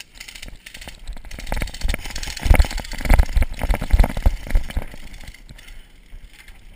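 A person running through tall grass and over dirt: heavy footfalls about every two-thirds of a second, strongest in the middle, jarring a body-worn camera, with grass brushing against it.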